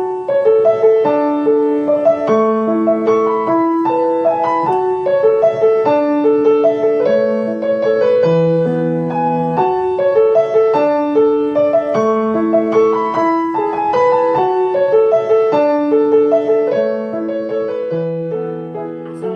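Piano music: a steady melody of short notes over a lower line of longer held notes.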